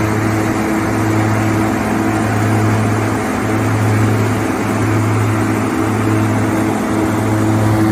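OXBO self-propelled green bean harvester running steadily while picking: a constant low engine hum with a few steady higher tones over the noise of the machinery.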